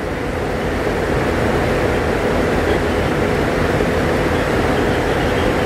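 Steady, loud rushing noise with a faint constant hum, unchanging throughout.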